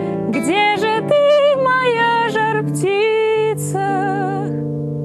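A woman singing a slow song melody with vibrato over acoustic guitar chords. Her voice stops about four and a half seconds in while the guitar keeps ringing.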